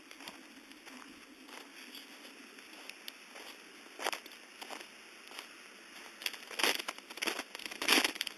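Footsteps crunching through deep snow with an icy crust, a few scattered crunches about halfway through, then louder, quicker ones near the end, picked up by a cell phone's microphone.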